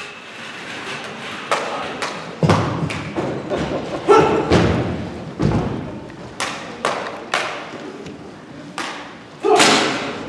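Irregular thumps and knocks on a theatre stage, about fifteen of them, each with a short echo in the hall. The loudest come about four seconds in and near the end.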